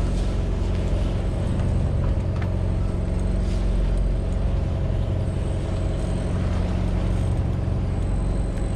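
A fishing boat's motor running steadily with a low, even hum.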